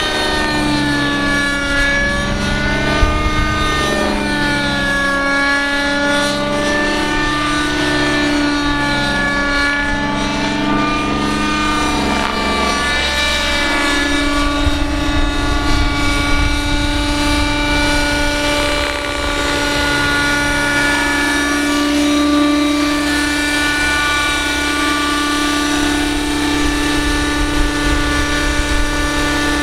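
Radio-controlled scale Hughes 500 helicopter in flight, its engine and rotors running loud and continuous. The pitch swings up and down as it manoeuvres through the first half, then holds nearly steady as it comes in low to hover.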